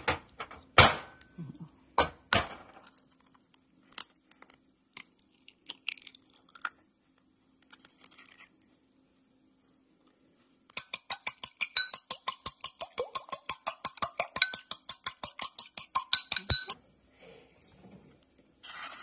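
An egg cracked on the rim of a ceramic bowl, with two sharp knocks in the first few seconds and a few light clinks after. From about eleven seconds in, the egg is beaten in the bowl: a utensil clinks rapidly against the ceramic, several times a second, for about six seconds.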